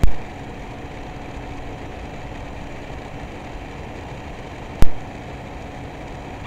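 Two sharp mouse clicks, one at the very start and one about five seconds later, over a steady low background hum.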